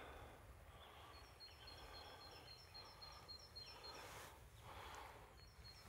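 Near silence: faint ambient noise, with a faint high chirp repeated about five times a second through the middle and a soft rustle about four seconds in.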